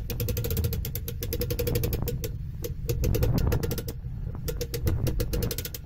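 A boat on its trailer being towed: a fast, dense clatter and rattle of the trailer and hull fittings over a steady low rumble of road and engine noise.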